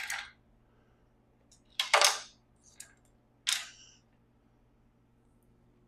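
Short metallic clicks and clatters of small hand tools and driver bits being handled and set down, four of them in the first four seconds, the loudest a little under two seconds in.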